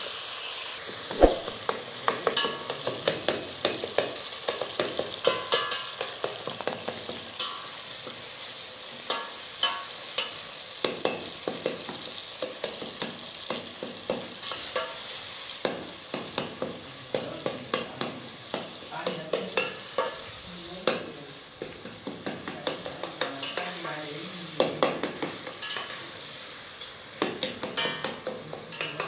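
A curry sizzles in a steel pot while a slotted steel spoon stirs it, the spoon knocking and scraping against the pot's sides and bottom again and again.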